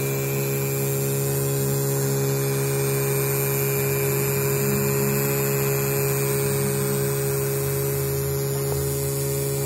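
Small DC motor running steadily, spinning a propeller cut from wooden craft sticks: an even electric whir over a steady low hum.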